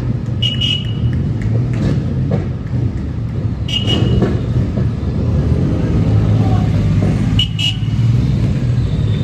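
Vehicle engines running with a steady low rumble, with three short horn toots spaced a few seconds apart.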